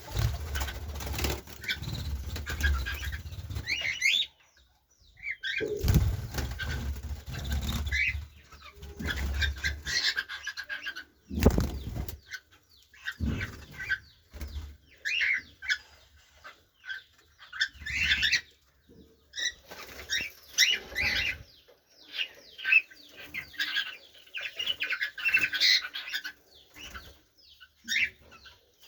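Caged cockatiels and diamond doves fluttering their wings in an aviary, with irregular runs of short chirping calls that grow busier in the second half.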